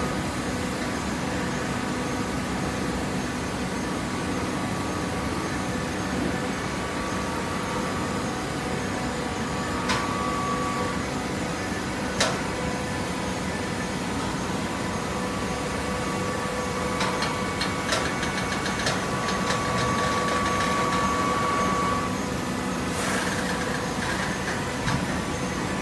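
Hydraulic waste-paper baler running: a steady machine hum with a few sharp clicks and knocks.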